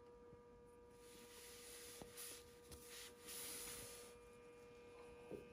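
Near silence: a faint steady hum, with soft rustles of fabric being handled and a couple of light clicks.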